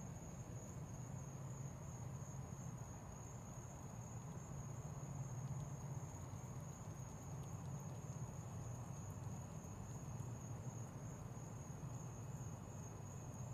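Steady high-pitched chirring of crickets, with a low hum underneath.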